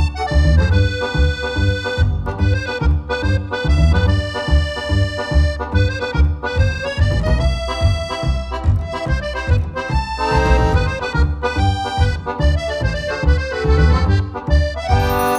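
Background music led by an accordion-like melody over a steady beat, with a rising swoosh near the end.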